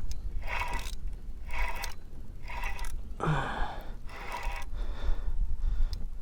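A person breathing hard and quickly, about one breath a second, while fighting a hooked striped bass on rod and reel.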